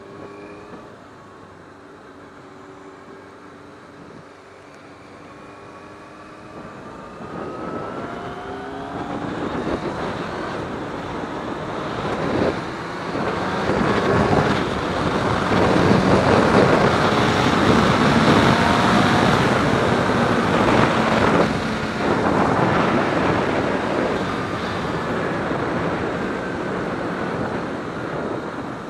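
Motorcycle engine pulling away and accelerating, its pitch rising through the gears, while wind rush over the microphone grows louder as the speed builds and then stays steady.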